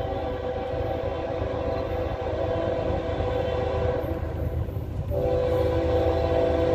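Distant diesel locomotive air horn sounding a long, steady multi-note blast, breaking off briefly about four and a half seconds in and then sounding again louder as the train approaches, over a low rumble.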